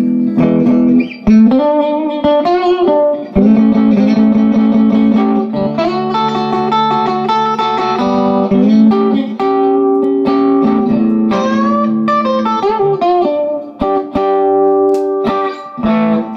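Gretsch G5622T Electromatic hollowbody electric guitar played with a pick through a Vox amp: sustained chords and single notes ringing out, with a few sliding notes. The repaired low E string rings clearly, with no buzz at the recut nut slot.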